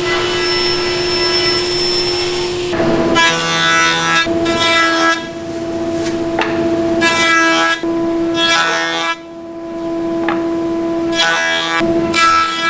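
Woodworking machines running: a table saw hums at first, then a thickness planer has boards fed through it. Each pass gives a loud, shrill whine over a steady machine hum, the passes coming and going irregularly.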